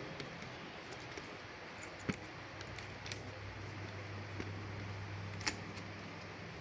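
Sparse clicks and taps of a computer keyboard and mouse, the sharpest about two seconds and five and a half seconds in, over a steady low room hum.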